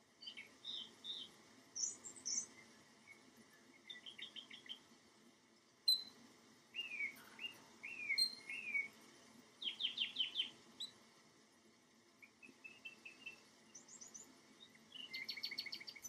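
Domestic canary singing in short separate phrases of chirps, sliding notes and quick trills, with pauses between them.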